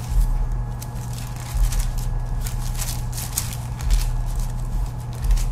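Thin Bible pages being turned and rustled close to a microphone: scattered short crackling strokes, with a few soft low thumps and a steady electrical hum underneath.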